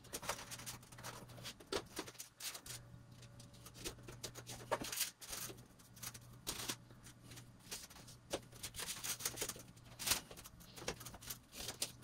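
Light, irregular clicks and taps of plastic HO scale track sections being handled, fitted and pressed down onto incline risers.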